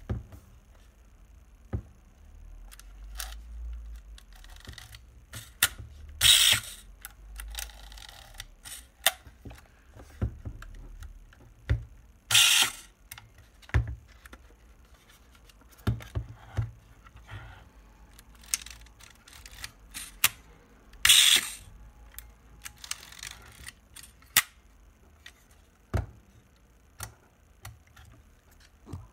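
Horizon 202 panoramic camera worked by hand: a run of clicks and ratcheting from the film-advance lever, shutter button and speed dial. Three times, a louder half-second whirr as the swinging lens drum sweeps across to fire the shutter.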